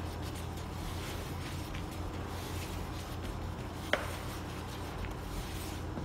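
Silicone whisk stirring dry flour and crushed walnuts in a plastic bowl: soft, irregular scratching and rubbing, with one sharp tap about four seconds in, over a steady low hum.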